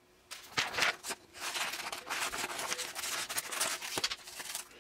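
Sheets of paper rustling and crinkling as they are handled, with a few sharp clicks along the way.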